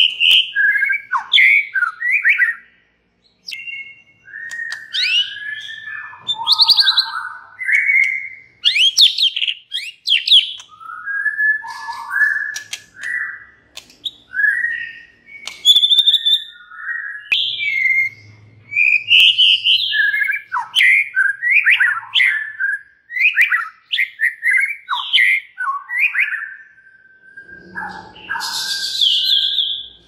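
White-rumped shama singing a long, varied song of clear whistled phrases, pitch glides and quick runs of notes with short pauses between, and a harsher, noisier note near the end.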